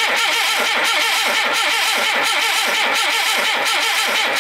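Starter motor cranking the Talbot Sunbeam Lotus's Lotus twin-cam four-cylinder engine over at a steady, even rhythm without it firing. This is the first start attempt after six years in storage, and the plugs come out dry.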